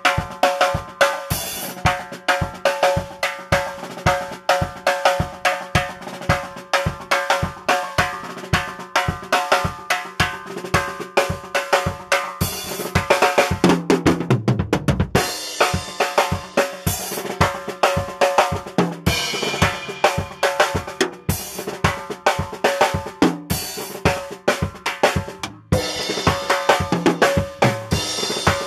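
Drum kit played in a fast, busy sebene-style groove: rapid snare, hi-hat and bass drum strokes with cymbal crashes. About halfway through, a fill on the toms falls in pitch.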